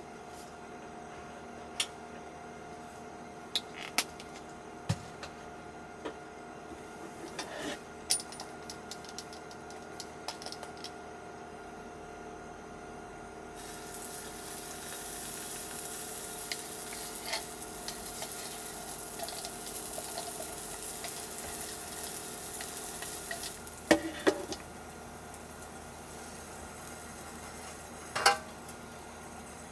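Pancake batter poured onto the hot oiled plate of an electric tabletop hot plate starts sizzling about halfway through, a steady hiss for about ten seconds. Before it come small clicks and taps over a faint steady hum, and after it a few sharp knocks.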